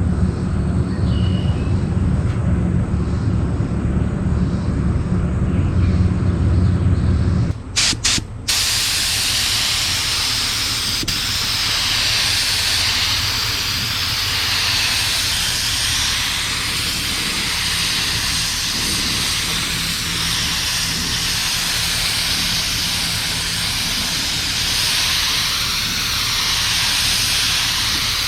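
A low, steady machine hum stops about eight seconds in. It gives way to the steady hiss of a paint spray gun laying primer, which swells and eases slightly with each pass.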